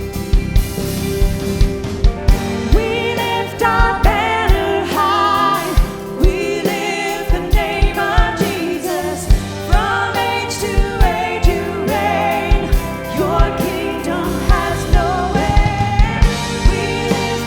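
Contemporary worship band playing, with a steady kick-drum beat, bass and guitars, and singing over it.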